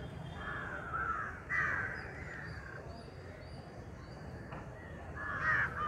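Crows cawing: a couple of harsh caws in the first two seconds, then another near the end.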